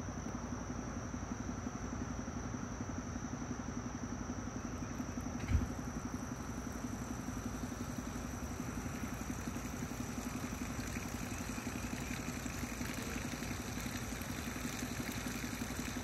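A motor running steadily, with one thump about five and a half seconds in.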